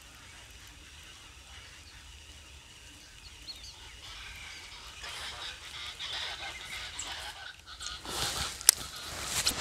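Birds calling, getting louder and busier in the second half, with a sharp knock near the end.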